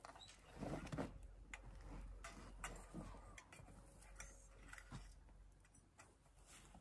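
Faint scattered clicks and taps of spoons and hands against metal bowls and plates during a quiet meal, with a few soft thuds in the first second.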